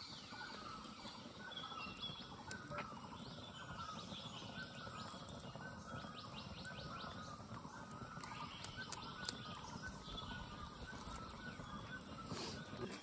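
Wild birds chirping and calling in a forest: many short, overlapping chirps over a faint background hush, with a few sharp clicks scattered through.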